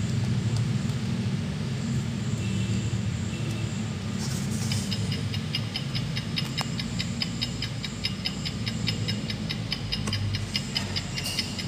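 The sound chip of a children's noisy board book plays a clock tick-tocking: a steady run of evenly spaced, sharp ticks starts about four and a half seconds in and stops just before the end. A steady low hum lies under it throughout.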